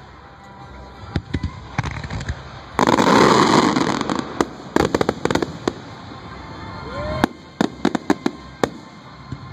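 Fireworks going off: a string of sharp bangs and crackles, with one loud, dense burst about three seconds in that lasts about a second, and a quick run of cracking pops near the end.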